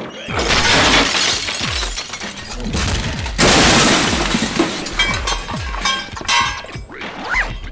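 A loud crashing, shattering noise in two bursts, the first about two seconds long and the second about a second long, over electronic music with a deep, falling-pitch beat.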